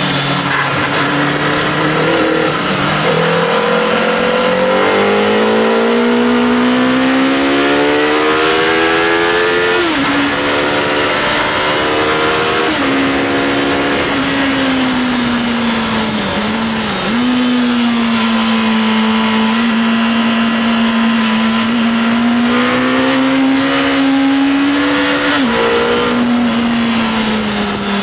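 Honda CBR Fireblade's inline-four engine heard onboard at track speed under heavy wind noise. It climbs in pitch for about ten seconds with quick drops at shifts about ten and thirteen seconds in, eases off and dips around sixteen seconds, then pulls steadily and climbs again before another sudden drop near the end.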